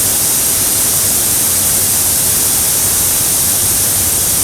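Steady, loud hissing noise with a faint low hum underneath, unchanging throughout.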